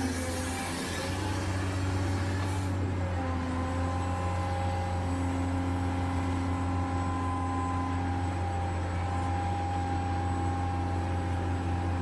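Hydraulic RC excavator's pump running: a steady low hum with whining tones that switch on and off and shift pitch every few seconds as the boom, arm and bucket valves are worked. A hiss sits over it for the first few seconds.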